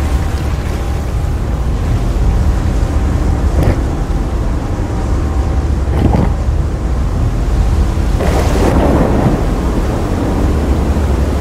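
Whitewater rapids rushing and crashing: a loud, steady rumble of water heavy in the low end. There are two short sharp knocks near 4 and 6 seconds, and a surge of splashing about 8 seconds in.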